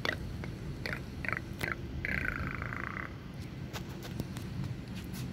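An animal calling at night: three short calls close together about a second in, then one longer call lasting about a second, over a steady low rumbling background.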